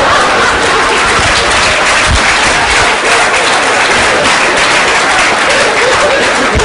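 Audience applauding: dense, steady clapping from a large crowd, with a few voices rising in the crowd near the end.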